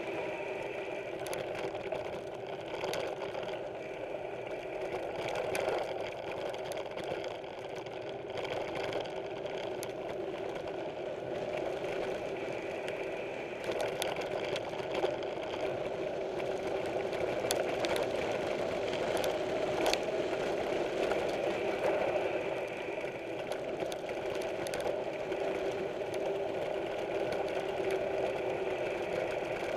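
Mountain bike rolling along a dirt trail: a steady mechanical buzz with rattling and scattered clicks from the bike.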